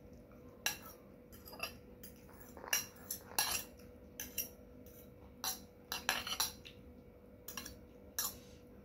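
A metal fork clinking and scraping against a glass bowl as noodles are pulled out of it into a bowl of soup: about a dozen short, sharp clinks at uneven intervals.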